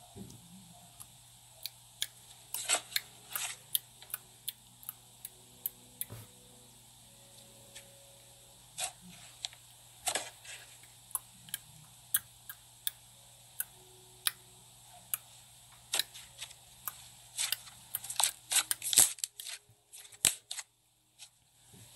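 Grey slime being squeezed and pressed by hand, giving irregular sharp clicks and pops, which come thickest a few seconds before the end.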